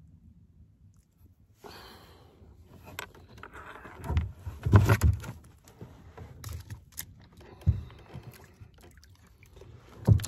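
Hollow thumps and knocks on a kayak's hull with rustling and scraping as it is handled. A cluster of heavy thumps about four to five seconds in is the loudest, with single thumps near eight seconds and near the end.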